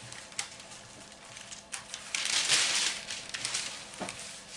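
Wax paper crinkling and rustling under hands that roll a ball of dough in loose flour. It is loudest for about a second, starting around two seconds in, with small taps and rustles around it.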